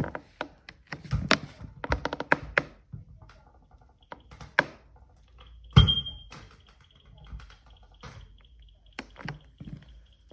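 Handling noise: a run of knocks, taps and clicks as objects are picked up and set down, with the loudest thunk about six seconds in.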